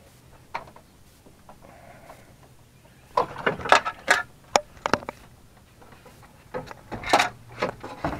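Hand tools working a fastener loose behind a pickup's front bumper: a few isolated sharp clicks, then a burst of loud clicks, knocks and scrapes about three seconds in, and another near the end.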